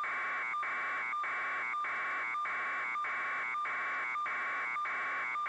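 A steady electronic buzz with a constant tone in it, broken by short regular gaps a little under twice a second.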